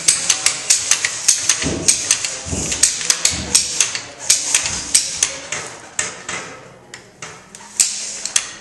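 A rapid series of sharp taps or clicks, about three to four a second, with a few duller thuds in the middle; the taps thin out and grow fainter near the end.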